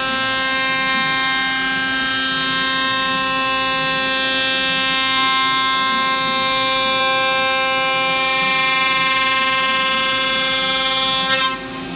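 KOMO CNC router spindle cutting an aluminium extrusion: a loud, steady, pitched machining whine with many overtones over a lower hum, stopping abruptly near the end as the cut finishes.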